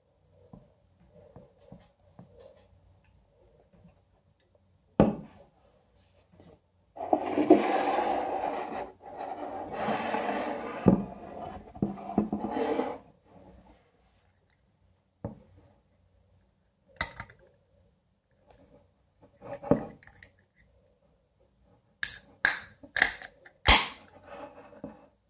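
An aluminium energy-drink can and a drinking glass handled on a table: a knock, a few seconds of scraping and rubbing, and scattered small knocks. Near the end come several sharp clicks as the can's pull-tab is lifted and cracked open.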